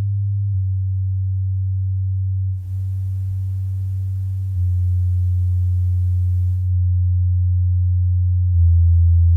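Steady low bass test tones, around 100 Hz, played through active bookshelf speakers, changing to a new tone about every two seconds and getting louder step by step. A faint hiss comes in for a few seconds in the middle.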